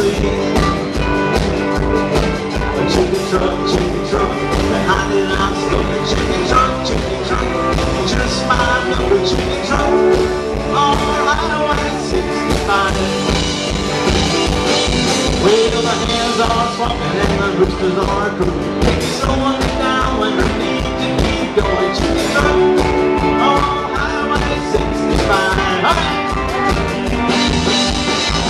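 Live rockabilly band playing: acoustic and electric guitars over a steady drum beat.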